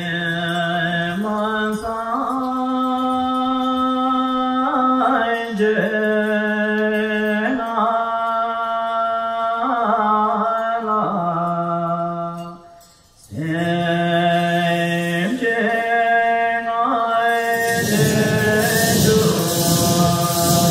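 Slow chanted melody of a Chöd liturgy, sung in long held notes that step from pitch to pitch, with a brief break about two-thirds through. Near the end, hand bells ringing and large Chöd hand drums rattling join the chant.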